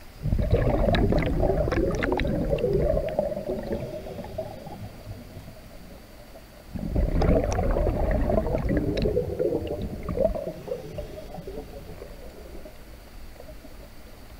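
Scuba diver's exhaled air bubbling out of the regulator underwater, in two exhalations about six and a half seconds apart: each starts suddenly as a rumbling, crackling burst of bubbles and fades away over a few seconds.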